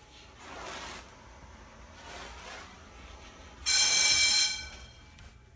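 Fire alarm horn sounding once, loud, for almost a second near the end, after two soft hissing noises.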